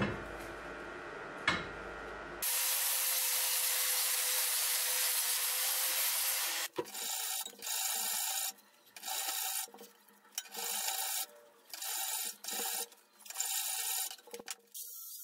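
A hand file rasping across the steel jaw of an old post vise. There is a steady stretch of filing for about four seconds, then a run of separate strokes with short pauses between them, after a couple of small knocks at the start.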